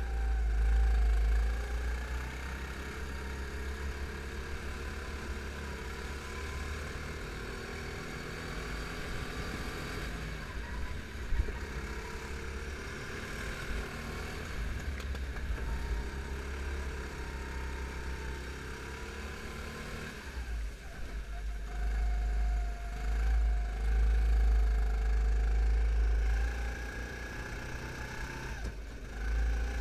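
Rental go-kart engine running on the track, heard onboard the kart, its pitch rising and falling as the driver comes on and off the throttle through the corners, with a heavy low rumble underneath.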